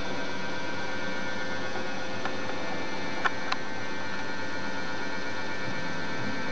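Steady electrical hum with hiss. A few faint short clicks come about two seconds in and twice more about a second later.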